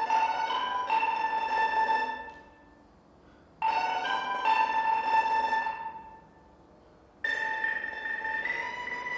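Mandolin and xylophone playing together: phrases of held, rapidly repeated notes that each die away into a pause of about a second, the last phrase climbing step by step in pitch.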